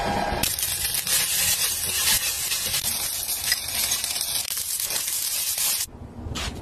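Rice noodles and sausage slices sizzling and crackling in a hot frying pan, a steady hiss that starts about half a second in and cuts off suddenly near the end.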